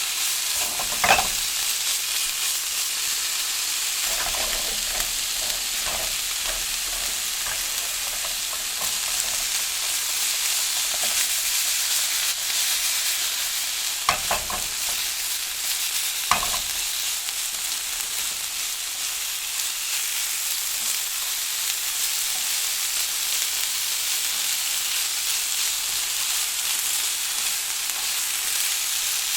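Vegetables stir-frying in hot oil: a steady sizzle, with a few sharp knocks and scrapes of the utensil against the pan, the loudest about a second in and around 14 and 16 seconds in.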